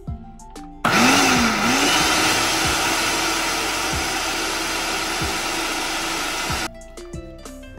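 Electric food processor running, its blade chopping wet green chilies and herbs in the plastic bowl: the motor starts about a second in, hums steadily with a loud whirring chop for about six seconds, then cuts off sharply.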